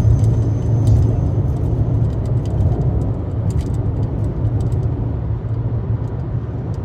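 Steady low rumble of a moving road vehicle, with a few faint ticks above it.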